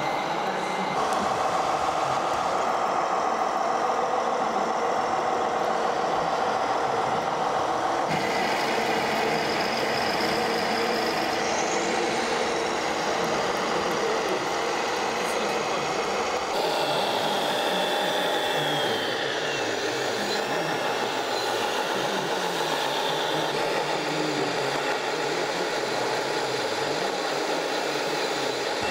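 Radio-controlled model trucks and machines running, a steady mechanical hum with motor and gear whine, including a rising whine and later a falling one. The sound shifts abruptly about 8 and 16 seconds in.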